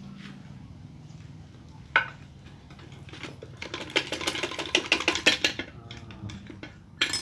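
Steel transmission gears and shafts of a Daihatsu Gran Max gearbox clinking and knocking against each other and the case as the gear set is worked out of the housing: a sharp knock about two seconds in, a quick run of clinks in the middle, and more knocks near the end.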